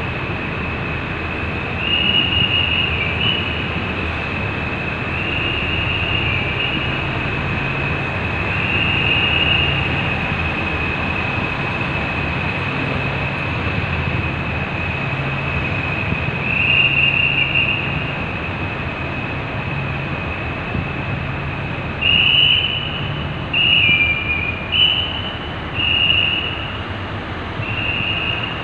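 Rail work vehicle running along the track: a steady engine and rolling drone with a continuous high-pitched whine that swells louder every few seconds, several times in quick succession near the end.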